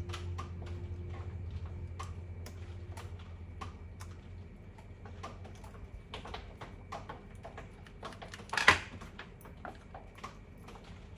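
Scattered small plastic and metal clicks and taps from hands handling the cassette door mechanism of a JVC PC-W300 boombox, with one sharper, louder clack about eight and a half seconds in. A low hum fades out after the first few seconds.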